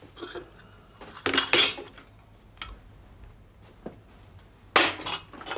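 China crockery and cutlery clinking in a few short clatters, the loudest about a second and a half in and near the end, with small clicks between.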